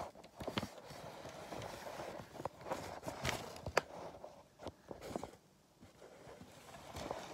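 Scattered, irregular light taps and knocks, with a quieter stretch near the end.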